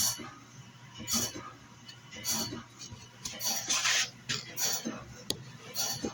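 CBN band saw blade sharpener running: short grinding bursts about once a second as it works tooth by tooth, over a low steady motor hum.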